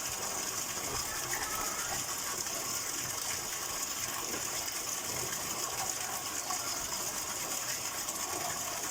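Fresh water flowing with a steady rushing sound.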